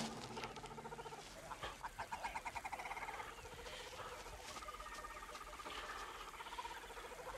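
Faint jungle ambience of animal calls: several overlapping rapid trills, some higher and some lower in pitch, going on throughout.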